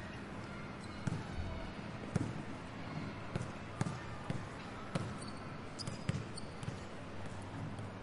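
Schoolyard ambience as school lets out: children's voices in the background and a run of sharp thumps at irregular intervals over a steady low hum.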